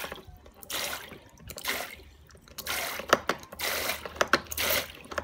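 Water spurting from a toy sink faucet into its plastic basin in repeated pulses, about one a second, as the faucet's manual plunger pump is pressed again and again, with clicks from the plunger.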